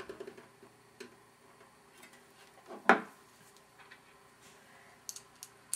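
Small clicks and taps of computer parts being handled and fitted into a mini PC case, with one sharp louder click about three seconds in and a few quick clicks near the end.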